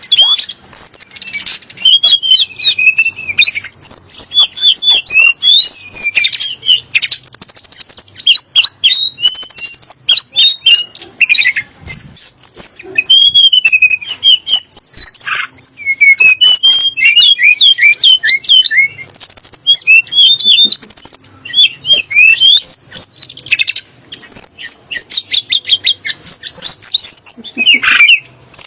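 Tledekan gunung songbird singing a fast, varied song of whistled notes, trills and chattering phrases, with short pauses between phrases. The song is used as a challenge call to make kacer and murai birds angry.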